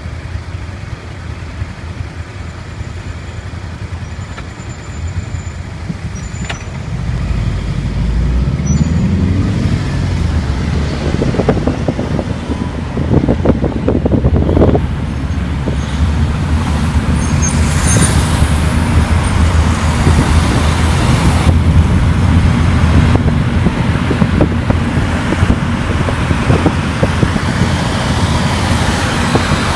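Taxi engine and road noise heard from the car: low and steady while stopped, then louder from about seven seconds in as the car pulls away with a rising engine note, settling into steady driving noise.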